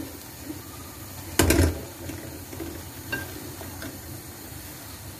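Boiled noodles and keema being stirred and tossed with a spatula in a metal pot on the stove, over a low sizzle. There is one brief loud clatter of the spatula against the pot about a second and a half in.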